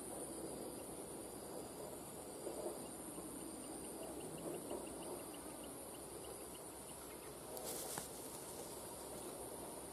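Steady high-pitched insect chorus, with a run of quick regular ticks, about five a second, through the middle. Near the end comes a brief hiss ending in a click.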